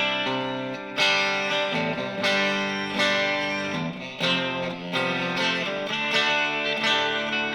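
Electric guitar strumming sustained chords through a TC Electronic Flashback X4 delay pedal set to dynamic delay, a new chord struck about once a second with the repeats ringing on beneath.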